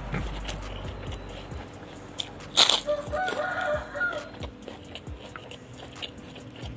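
Close mouth sounds of eating by hand: chewing and lip-smack clicks, with one sharp, loud smack about two and a half seconds in. Just after it a chicken calls briefly in the background.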